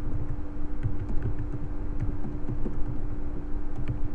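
Typing on a computer keyboard: quick, irregular keystrokes, over a steady low hum.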